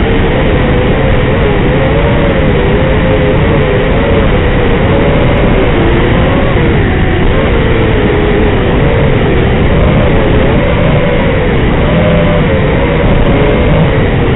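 FPV racing quadcopter's four Racerstar 2205 brushless motors and propellers whining, the pitch rising and falling constantly with throttle, heard through the onboard camera microphone over a loud hiss.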